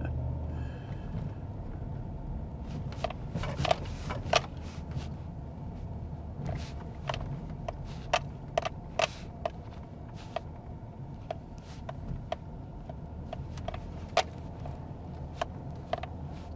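A vehicle running with a steady low hum, with irregular sharp clicks and rattles scattered throughout.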